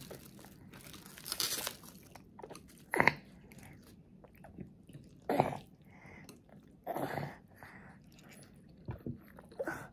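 A toddler eating rice and hamburger steak off a spoon: chewing and mouth sounds, with a few short clicks of the spoon against the plate, in separate events with quiet gaps between, the sharpest about three seconds in.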